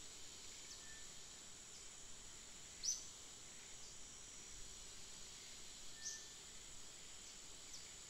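Outdoor ambience of a steady, high insect drone, with two short high chirps about three seconds apart.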